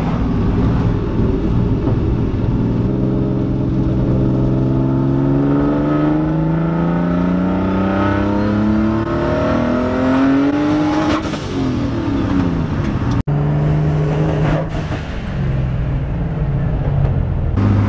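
Turbocharged Nissan 240SX engine at wide-open throttle in second gear, the revs climbing steadily for about eight seconds under heavy boost. About two-thirds of the way in the throttle is released and the revs fall away in steps.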